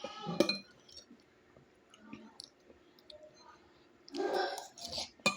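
Close-up eating sounds of a person eating noodles: wet mouth clicks and smacking while chewing, with a short louder burst right at the start and a louder noisy stretch about four seconds in.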